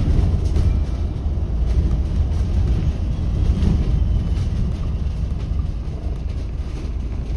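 Steady low rumble of a bus's engine and road noise, heard from inside the bus.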